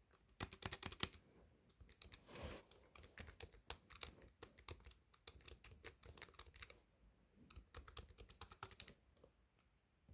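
Typing on a computer keyboard: a fast run of keystrokes about half a second in, then irregular keystrokes with short pauses, easing off near the end.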